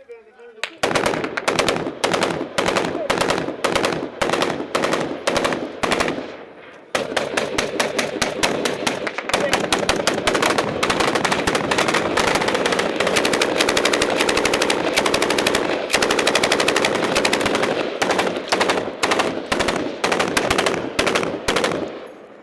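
Automatic weapon firing close to the microphone. It fires in short bursts at first, pauses briefly about six seconds in, then keeps up long, nearly continuous rapid fire until shortly before the end.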